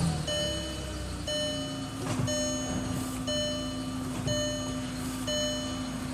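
A car's warning chime sounding once a second, each tone lasting about two-thirds of a second. Under it is the steady low hum of the running car.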